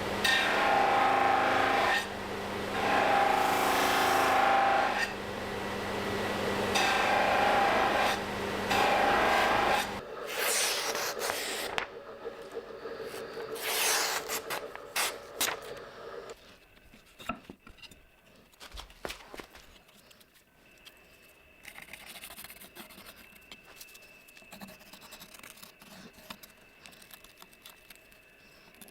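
Abrasive shaping work on a knife workpiece: several loud rubbing passes of a second or two each over a steady hum that stops about ten seconds in, followed by shorter scraping strokes and then light scattered scrapes and clicks.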